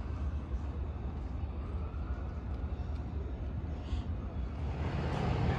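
Steady low outdoor rumble with no distinct event, growing louder near the end.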